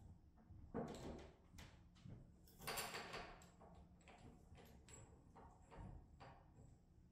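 Quiet hand-work on a hydraulic control valve's control cables and metal fittings on a tabletop: a few short rattles and scrapes, the loudest about three seconds in, then lighter clicks.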